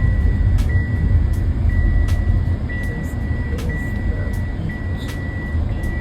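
Low rumble of a car heard from inside the cabin as it drives slowly. Over it, a high electronic beep sounds in long pulses, repeating about once a second.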